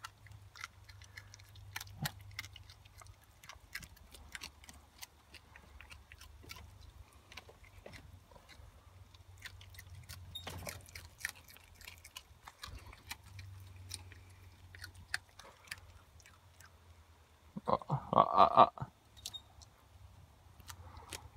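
Red fox biting and chewing a dead mouse: a scatter of small clicks and crunches. A louder burst of sound comes about eighteen seconds in.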